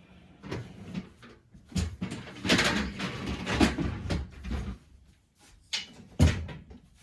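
Things being shifted about in a small room: a few knocks, a long scrape from about two and a half to nearly five seconds in, and a sharp knock about six seconds in.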